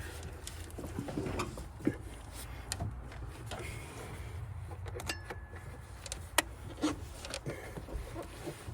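An 18mm ratcheting wrench working a fuel rail plug loose: irregular sharp metallic clicks and knocks of the tool in the engine bay, over a low steady rumble.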